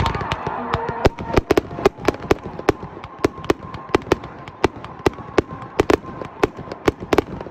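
Fireworks going off: a loud burst at the start, then a rapid, irregular string of sharp bangs and cracks, several a second.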